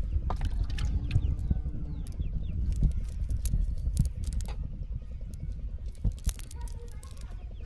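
A fine nylon fishing net being picked through by hand: rustling with many scattered sharp taps and clicks, over a low rumble of handling.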